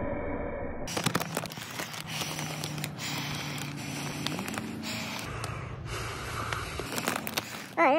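A person breathing in and out of a large plastic bag held over the mouth, rebreathing the same air, with the plastic crinkling and rustling.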